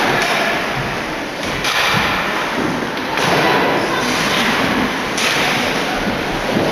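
Hockey crowd in an arena cheering and shouting, rising in repeated loud surges, with thuds mixed in.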